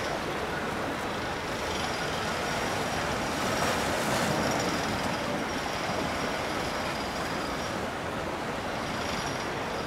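Steady rumble of boat engines, swelling slightly about four seconds in.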